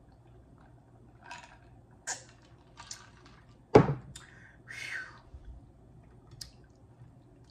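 A drinking glass set down on a table with a thump just under four seconds in, the loudest sound. Around it are a few short, soft sounds of drinking and handling.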